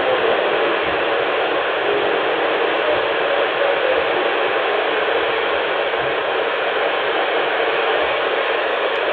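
Steady shortwave static hiss from a QODOSEN DX-286 portable radio's speaker, tuned to a weak indoor signal at 11780 kHz, with little of the broadcast getting through the noise.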